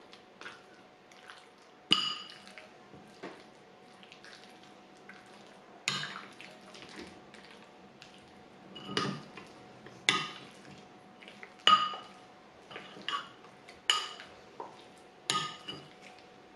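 Metal spoon clinking and scraping against a cut-glass bowl while mixing chicken pieces into a thick ground masala paste. There are sharp, ringing clinks at uneven gaps of one to four seconds, with softer scrapes and squishes between them.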